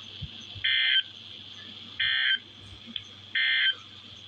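Three short, identical bursts of buzzy digital data tone about a second apart, heard through a weather radio's speaker over steady hiss. They are NOAA Weather Radio SAME end-of-message bursts, the code that closes the Required Weekly Test.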